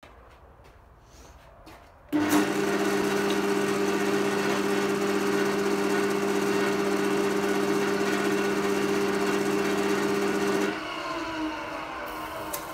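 Record Power wood lathe running with a steady hum while a turning tool cuts the spinning chisel handle, with a hiss of wood being cut. It starts about two seconds in; near the end the lathe is switched off and winds down, its hum falling in pitch, followed by a short click.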